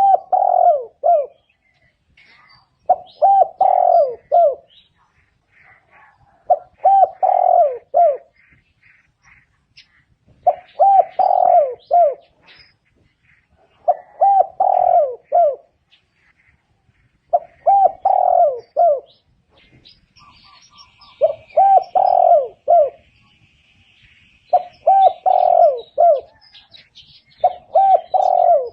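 Spotted dove cooing: a short phrase of several coos repeated about every three and a half seconds. Small birds chirp faintly in the background.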